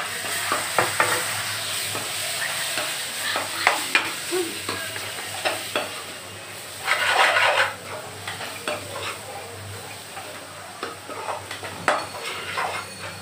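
A perforated metal spoon stirs and scrapes a thick masala sizzling in a metal kadai. Frequent clinks of the spoon against the pan sound over a steady frying hiss, with a longer, louder scrape about seven seconds in. The masala is being fried (bhuna) well in its oil.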